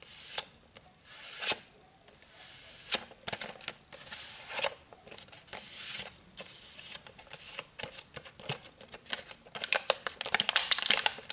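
Fingernails scratching and tapping on the plastic blister pack of a Colgate dental floss, in irregular bursts of dry scratching with sharp clicks that come thicker near the end.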